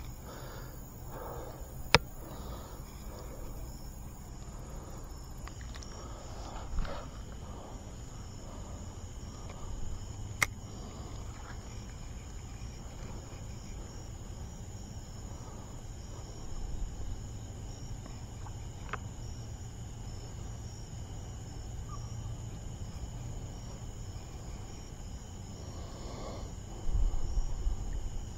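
Crickets and other insects trilling steadily in an evening chorus, one of them in a regular pulsing chirp. A few sharp clicks stand out over it.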